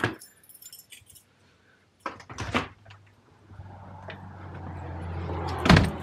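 A bunch of car keys jangling as they are lifted off a wall key hook. A short clatter follows about two seconds in, then a rising wash of outdoor noise and a loud thump near the end.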